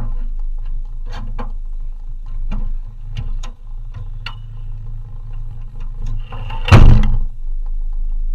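Vehicle engine idling with a steady low hum, with scattered light clicks and knocks. About seven seconds in, a loud thump as the vehicle's door is shut.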